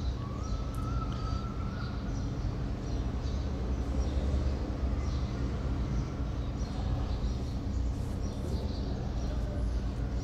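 Steady low-pitched background hum, with short high-pitched sounds scattered through it and a faint tone rising slowly during the first two seconds.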